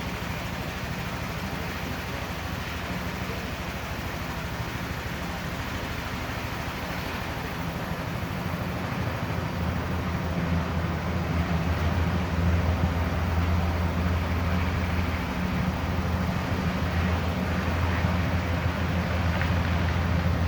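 Medical helicopter running on the ground, rotor and turbine turning, with a low pulsing hum and a faint high whine. It gets louder about eight to ten seconds in as it powers up for takeoff.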